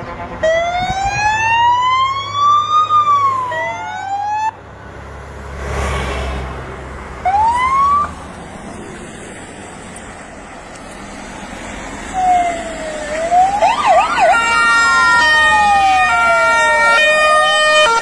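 Emergency sirens on a fire engine and police convoy: a slow rising-and-falling wail near the start and a short whoop about seven seconds in. From about twelve seconds, several sirens sound over one another, one a wail and one alternating between two pitches, with a vehicle engine rumbling past about six seconds in.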